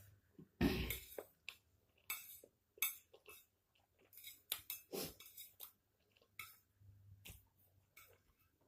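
Cutlery clinking and knocking against a plate in short, scattered strikes while instant fried noodles are eaten; the loudest knock comes just under a second in.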